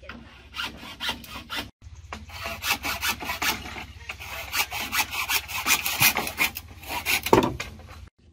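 A hand tool rasping against wood in quick repeated strokes, several a second, with a short break about two seconds in.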